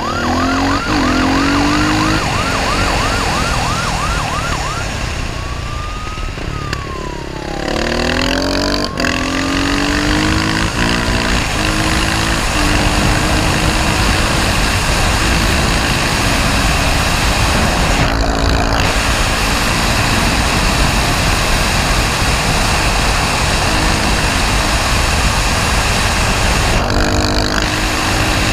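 A police siren yelping quickly for the first few seconds, then one slower wail. After that a dirt bike's engine revs up and drops again and again as the rider goes through the gears, with loud wind rushing past.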